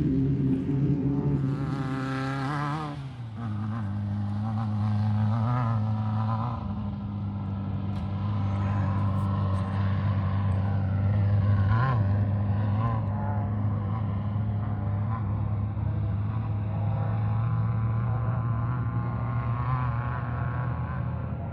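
Off-road race vehicle engines running and revving. One passes close about two to three seconds in, its pitch dropping as it goes by, and after that engines keep droning with the revs rising and falling.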